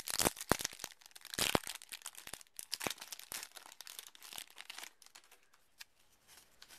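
Foil Yu-Gi-Oh booster pack wrapper being torn open and crinkled by hand. It is loudest and densest in the first couple of seconds, then thins to a few light crackles.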